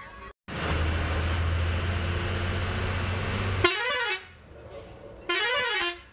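A bus's multi-tone musical horn sounds twice in the second half, each blast about half a second of pitch warbling rapidly up and down. Before it comes a few seconds of loud, steady rushing noise with a low hum.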